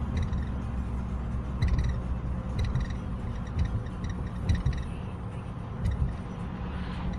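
BMW E90 with a steady low running drone, over which a short high-pitched chirping squeak or click recurs roughly once a second at uneven intervals. This is the annoying noise the owner is trying to show.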